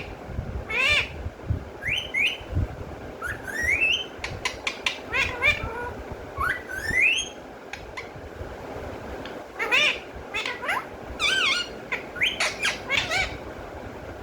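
Pet parrot calling: a string of short, rising whistled calls and squawks, with a pause of about two seconds in the middle.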